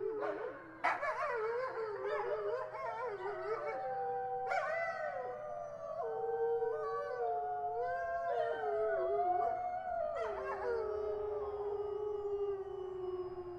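A chorus of howls: several voices overlap, wavering and gliding in pitch, then settle into one long, slowly falling howl in the last few seconds.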